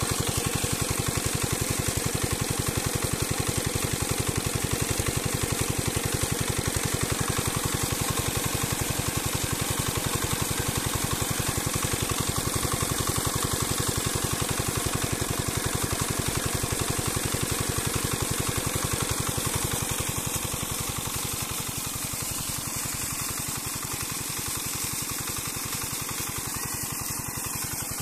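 Small single-cylinder diesel engine running steadily with a rapid, even beat as it drives an irrigation water pump, over the rush and splash of water gushing from the pump's discharge pipe. The sound gets a little quieter about two-thirds of the way through.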